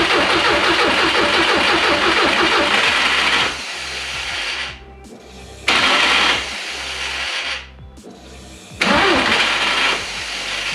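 Starter motor cranking a 1.8T 20-valve four-cylinder engine in three attempts without it firing. The first attempt runs about five seconds with a quick rhythmic beat, and two shorter tries follow, each cutting off. The new starter is the wrong part for this engine, so it is not turning the engine properly.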